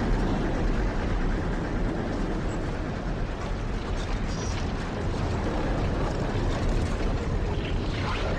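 A continuous, rumbling roar of storm wind, like a tornado passing close by.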